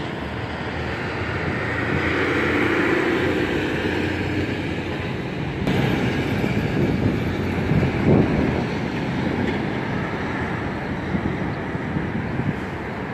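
Heavy road traffic passing close by: tyres and engines over a steady roar of road noise. It grows louder about six seconds in as a concrete mixer truck goes by, followed by a semi tractor pulling a lowboy trailer.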